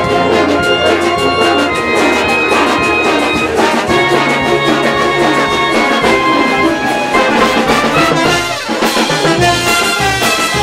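Andean brass band playing a continuous tune, brass melody over drums.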